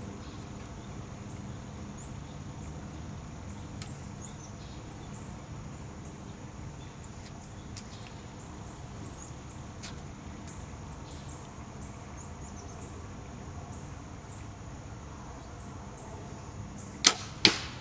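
Compound bow shot near the end: the sharp snap of the bowstring on release, then the arrow striking the target about half a second later, apparently hitting an arrow already in it. Before the shot, only a steady faint outdoor background with insects chirping.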